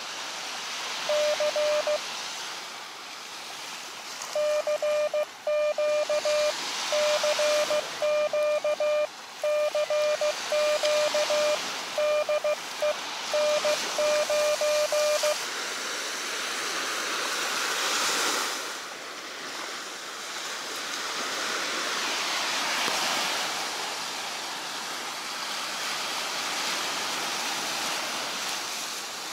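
Elecraft KX2 transceiver's CW sidetone: a steady beep keyed on and off in dots and dashes as Morse code is sent, for about the first fifteen seconds. Surf washes on the beach throughout and swells twice in the second half.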